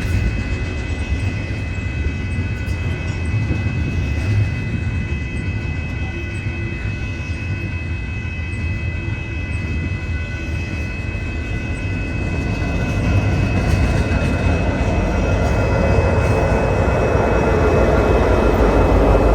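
Freight train rolling past: a steady low rumble with a thin steady high-pitched ringing over it, growing louder in the second half.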